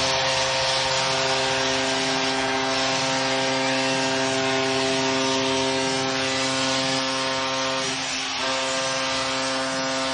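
Arena goal horn sounding a steady chord of several tones held for about ten seconds, with a brief dip about eight seconds in, over a cheering crowd: the home team has just scored.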